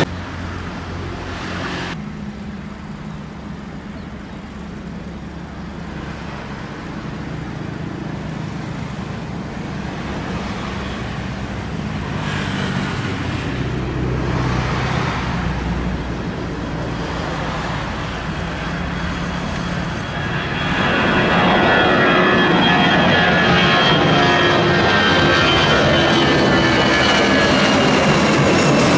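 Citilink Airbus A320 twin-engine jet airliner taking off: the jet engines run up through the takeoff roll and grow much louder about two-thirds of the way through as the aircraft passes and climbs, with an engine whine falling in pitch.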